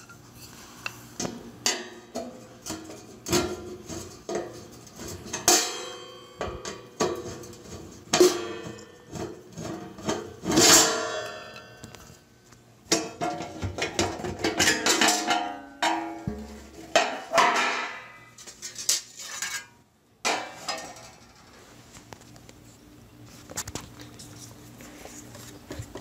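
A dishwasher's stainless-steel kick panel being worked loose and pulled off: a series of irregular metallic clanks, rattles and scrapes. They are busiest through the middle and die down to a few faint knocks near the end.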